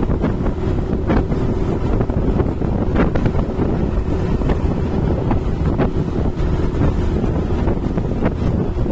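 Heavy wind noise on the microphone: a steady low rumble with brief gusty crackles.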